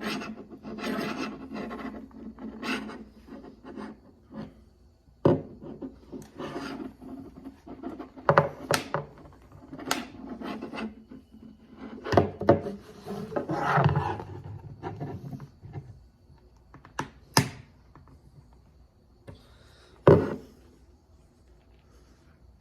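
Scraping and rubbing of a car's plastic shift-boot retainer against the centre console trim as it is worked loose, with several sharp clicks and knocks as its retaining clips are pushed in and pop free.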